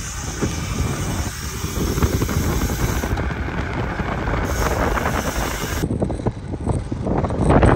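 Wind buffeting the microphone of a camera carried on a fast-ridden gravel bike, over a steady low rumble. The sound turns rougher and more rattly near the end.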